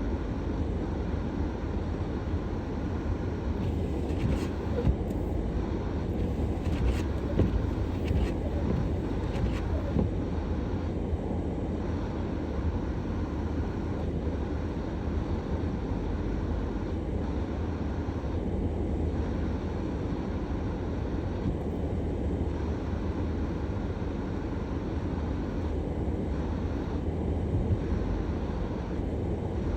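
Car driving: a steady low rumble of engine and road noise, with a few faint clicks between about 4 and 10 seconds in.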